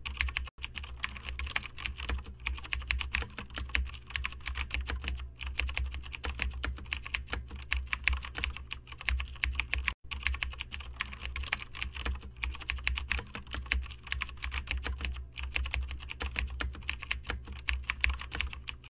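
Keyboard typing: a fast, continuous run of key clicks over a low steady hum, broken by two brief gaps (one just after the start, one about halfway), then cutting off suddenly at the end.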